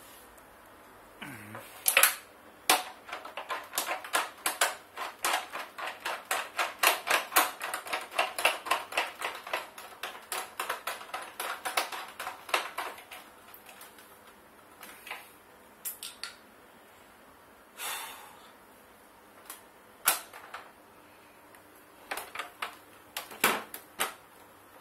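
Rapid run of small sharp clicks, about four or five a second, from hand work on the grinder's plastic housing during reassembly. After a few seconds of this, a handful of separate knocks follow as the plastic parts are handled and fitted together.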